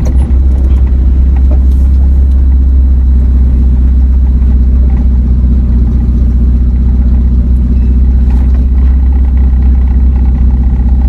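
Vehicle running steadily, a loud constant low rumble of engine and road noise.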